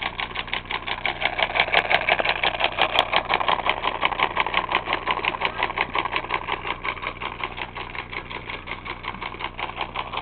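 Homemade solenoid engine running steadily: a cash-register solenoid snapping in on each stroke to drive an erector-set crank and flywheel, making rapid, even clicking at several strokes a second.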